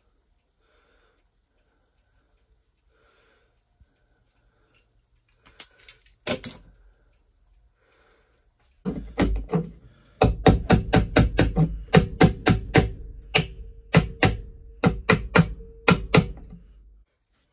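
Hammer blows on a punch held against a metal door threshold, knocking at rivets: a couple of strikes, then from about halfway a rapid run of sharp metallic blows, about three a second, each ringing briefly.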